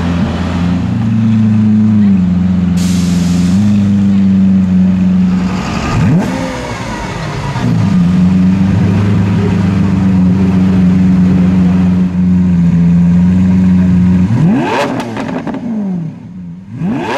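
Lamborghini Aventador Roadster's V12 with the sports exhaust running steadily, blipped once about six seconds in. Near the end it revs sharply twice, each rev rising quickly and dropping back.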